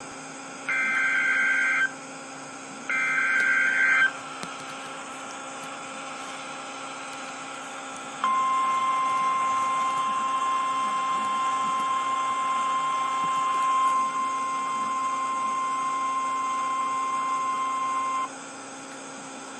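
Emergency Alert System header: two short, harsh, warbling SAME data bursts about a second apart. After a pause comes the steady single-tone warning alarm of NOAA Weather Radio, held for about ten seconds and then cut off, over faint radio hiss. The tones mark the start of a broadcast severe weather warning.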